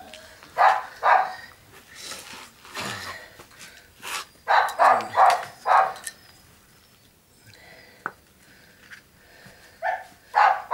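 Small dog barking in short, sharp barks: a couple at first, then a quick run of about four in a row, then a pause and two more near the end.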